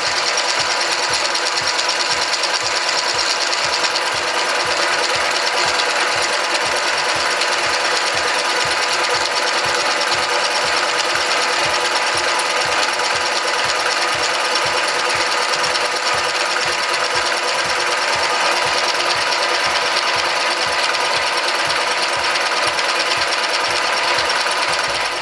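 VM-130 milling machine running under cut, its motor and gearing giving a steady multi-tone whine over a fast, regular pulsing from the cutter.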